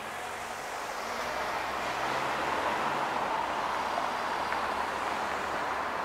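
A motor vehicle passing on the street, its noise swelling over the first two seconds and then holding.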